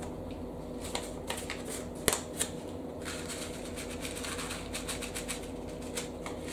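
Rustling of a paper seed packet and small clicks and taps of seeds being handled and sown by hand into compost-filled pots, with one sharper click about two seconds in.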